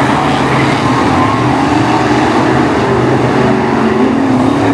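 Several BriSCA F1 stock cars' V8 engines running hard in a race, loud and steady, their pitches rising and falling as the cars circulate the oval.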